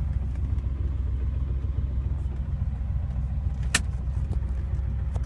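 Warmed-up Porsche engine running steadily with a light tapping knock that the owner is pointing out as a fault. One sharper click sounds a little past the middle.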